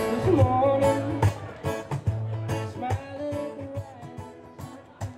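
Live band music: a male singer over guitar. The singing gives way to instrumental playing about a second in, and the music grows quieter.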